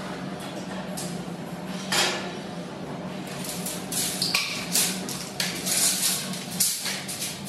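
Parts of a steel supermarket shelving rack clattering and clinking as they are handled and fitted: a single knock about two seconds in, then a quick run of clinks and rattles through the second half, over a steady low hum.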